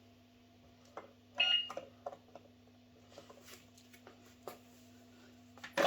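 Light clicks and taps of plastic toy pieces and coins being handled at a toy cash register, over a steady low electrical hum. Right at the end a loud electronic beep from the toy register starts.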